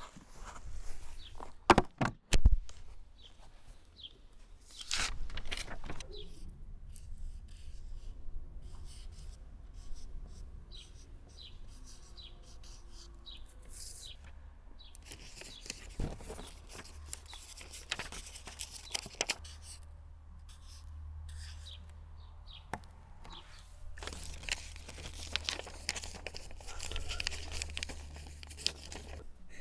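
Handling sounds at a wooden table: a few sharp knocks about two seconds in as trays are set down on the tabletop, then a marker scratching on paper slips and the slips rustling as they are folded.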